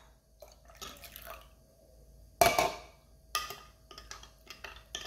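Lemon juice poured into blueberry syrup in a glass measuring cup, with a sharp knock about halfway through, then a spoon clicking against the glass as the mix is stirred.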